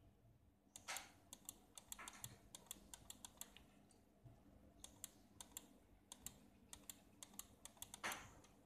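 Computer mouse button clicked over and over in quick, uneven runs of light clicks, scrolling a list down step by step.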